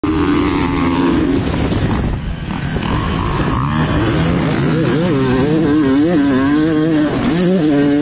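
Yamaha YZ two-stroke motocross bike's single-cylinder engine heard from on board, ridden hard: held at high revs at first, easing off briefly about two seconds in, then climbing again with quick rises and falls in pitch as the throttle is worked and gears change.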